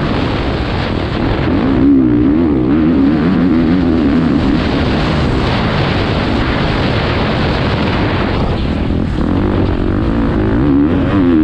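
Motocross bike engine heard from an onboard camera, running hard with the revs rising and falling as the rider works the throttle around the track.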